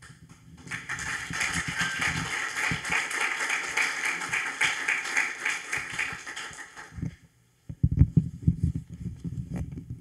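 Audience applauding for about six seconds, then dying away. Near the end come low thumps and knocks as the microphone and its stand are handled and adjusted.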